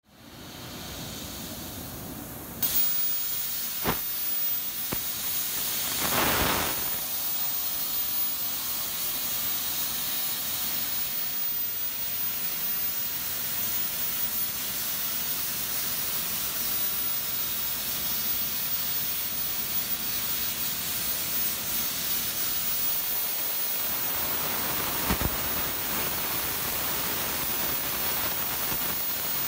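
Plasma cutting torch on a robotic bevel head, hissing steadily as it cuts a bevel into a metal dome. The hiss comes on suddenly about two and a half seconds in, with a brief louder surge a few seconds later.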